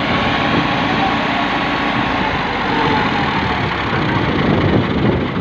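Two Ford tractors' three-cylinder diesel engines running hard as they strain to pull a heavily loaded trolley bogged in soft soil.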